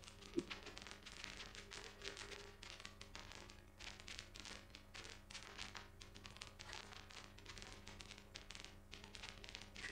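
Faint, irregular clicks of a computer mouse and keyboard over a low steady hum, with one sharper knock about half a second in.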